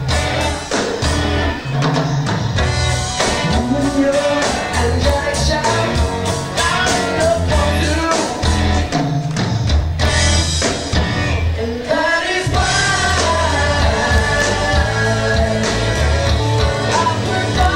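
Live rock band playing, with electric guitars, drums and singing.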